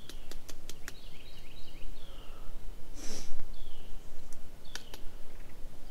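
Scattered crackles of dry leaf litter, with a short sharp breath through the nose about three seconds in. Faint high bird chirps sound behind.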